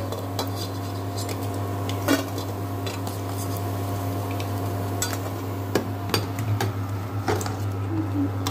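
A perforated steel skimmer clinks and scrapes against a stainless steel kadai now and then while fried cowpea finger fries are lifted out of the oil. Under it runs the steady hum of an induction cooktop.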